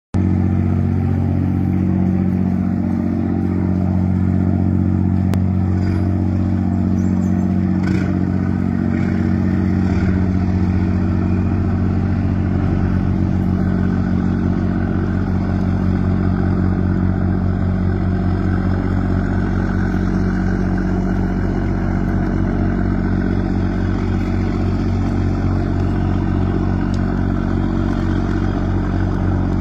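Yanmar 825 hp marine diesel engine of a river ferry running with a deep, steady roar; about ten seconds in a lower throb sets in and carries on.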